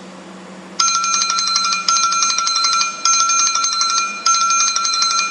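A bell ringing in a fast, continuous trill of rapid strikes, starting about a second in and restarting roughly every second.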